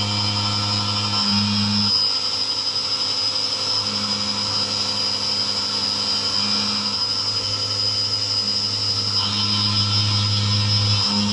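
SkyfireCNC SVM1-VMC CNC mill cutting an aluminium block under flood coolant. A steady high-pitched spindle whine runs over the cutting noise, with a low hum that comes and goes as the cut moves.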